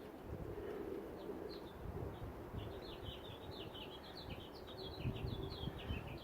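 A small songbird chirping in a quick run of short, high notes, with low rumbling and a few dull knocks underneath.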